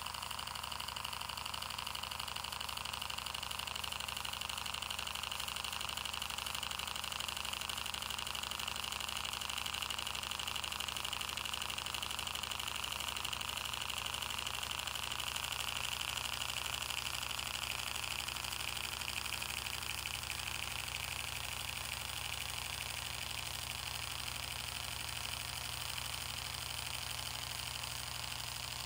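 Twin-cylinder steam engine running at a steady speed.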